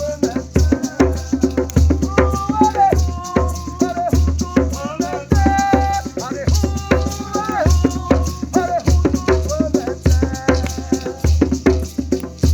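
Music: a voice singing a melody over shaken maraca rattles and a steady low drum beat, in a Kariri-Xocó-style song.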